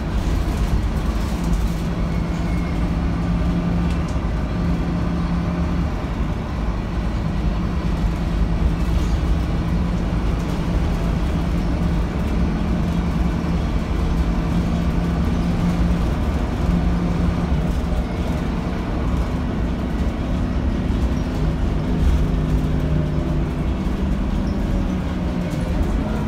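Scania K280UB city bus on the move, heard from the rear seats: a steady low engine and road rumble, with an engine hum that swells and drops away several times as the bus speeds up and eases off.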